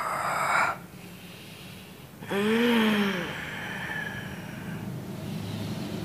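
A man breathing hard: a rush of breath that cuts off under a second in, then about two seconds in a long groan whose pitch rises and falls, followed by heavy breathing. He is the medium in a spirit-possession ritual, being roused into trance.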